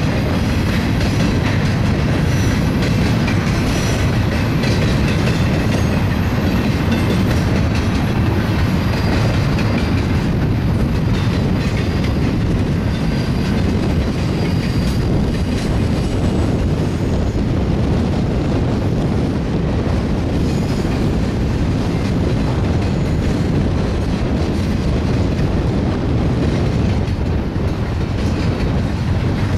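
A BNSF double-stack intermodal train's well cars rolling steadily past at close range: a continuous heavy rumble of steel wheels on the rails, with the clickety-clack of wheels crossing rail joints.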